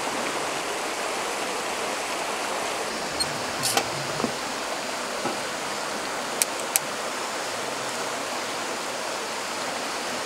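Steady rushing of a stream flowing over stones, with a few light clicks about four seconds in and two sharp clicks a little after six seconds as a hurricane lantern is handled and lit.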